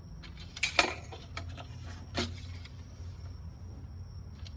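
Sharp metal clicks and clinks of an engine oil dipstick being handled and seated in its tube, the loudest just under a second in, over a steady low hum.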